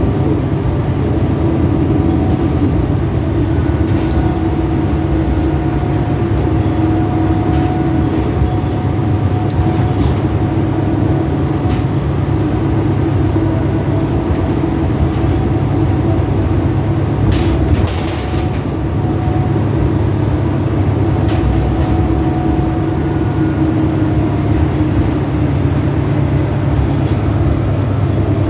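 Steady drive noise heard from inside a 2011 New Flyer DE40LFR diesel-electric hybrid bus under way: a low drone with whining tones from the drive that come and go. A short hiss comes about two-thirds of the way through.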